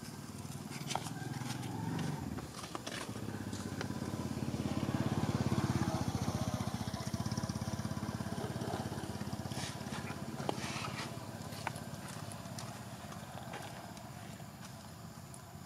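Low engine rumble of a passing motor vehicle, swelling to its loudest about five or six seconds in and then slowly fading. Scattered light clicks and ticks sound over it.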